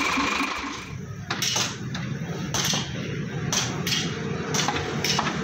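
A steady machine hum that cuts off about a second in, then sharp ringing knocks about once a second, hammer blows on metal in a truck workshop.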